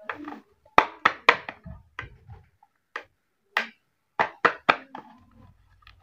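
Fingers and nails tapping and knocking on packaged soap bars and their cardboard boxes: a run of sharp taps, with three quick taps in a row twice, about a second in and again around four seconds in.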